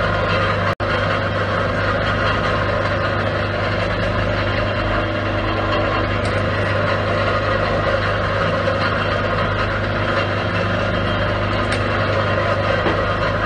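CAT 340OS electric oyster shucking machine running steadily with a low, even hum while oysters are worked against its shucking tip. The sound briefly cuts out for an instant about a second in.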